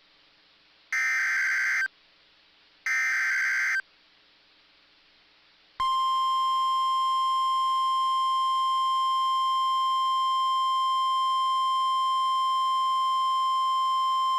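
Emergency Alert System SAME header: two one-second bursts of screeching digital data tones about two seconds apart. Then, from about six seconds in, the steady single-pitch NOAA Weather Radio 1050 Hz warning alarm tone sounds, signalling the start of a new severe thunderstorm warning.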